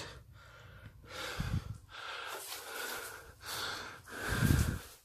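A person breathing close to the microphone: about four slow breaths in and out, two of them puffing against the mic with a low thump.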